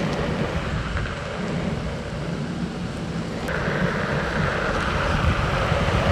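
Wind buffeting the microphone over the rumble of a Onewheel Pint's fat tyre rolling on pavement while riding: a steady rushing noise, with a higher hiss joining about halfway through.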